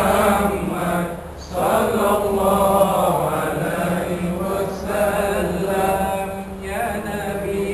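Many men's voices chanting a devotional chant together in unison, in long drawn-out phrases, with a brief pause about a second in and another near the end.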